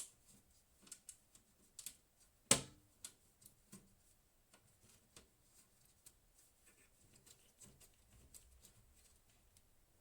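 Scattered light clicks and taps from small hard objects being handled, with one sharper knock about two and a half seconds in.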